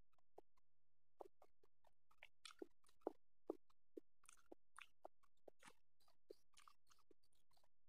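Faint close-miked eating sounds: a string of short wet clicks and smacks from chewing a mouthful of boiled duck egg, a couple of them louder a little past the middle.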